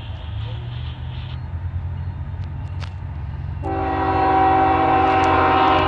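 Union Pacific diesel locomotive rumbling low as it approaches. A little past halfway its air horn sounds one loud, long blast, a chord of several notes held steady.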